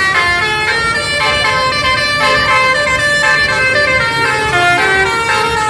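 Telolet basuri multi-note musical air horn playing a melody: a quick run of horn notes stepping up and down in pitch, one after another, without a break.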